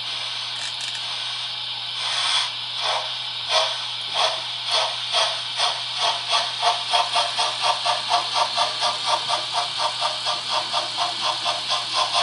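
Sound decoder of a Märklin model steam locomotive: a steady hiss of steam, then from about two seconds in the exhaust chuffs start slowly and speed up to about three or four a second as the locomotive pulls away.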